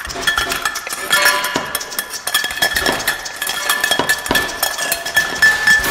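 Dishes and cutlery clinking in a quick, irregular run of small clicks, with a thin steady high tone underneath.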